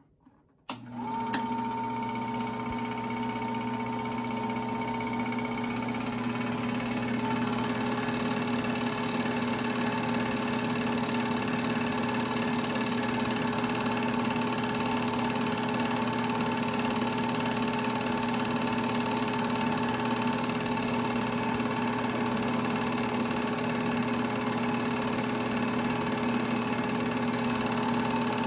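Sears 'Tower' home-movie projector starting up about a second in, then running steadily: a motor hum with the rapid mechanical whirr of the film being pulled through.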